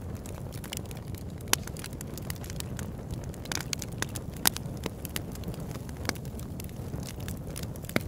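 Fire sound effect: a steady low rumble of flames with scattered sharp crackles and pops.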